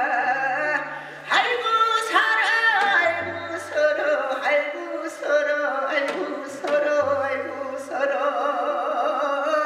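A voice singing a Korean ritual song in long held phrases with wide vibrato, over low steady notes that come and go.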